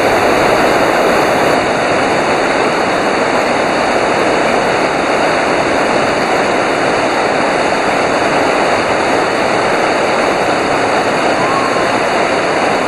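Whitewater river rapids: a loud, steady rush of churning water with no let-up.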